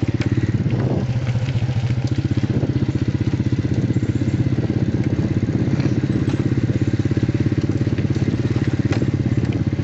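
Honda EX5 motorcycle's single-cylinder four-stroke engine running at a steady, even pace while riding, with a fast regular exhaust pulse, heard close up from the rider's seat.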